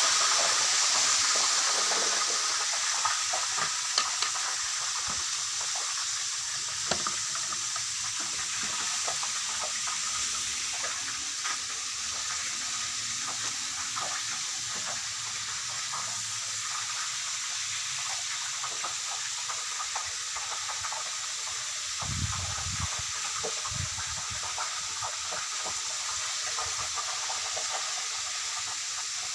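Tofu deep-frying in hot oil: a steady sizzle with scattered pops and crackles, easing off a little over the first several seconds. There are a few soft low thumps about three quarters of the way through.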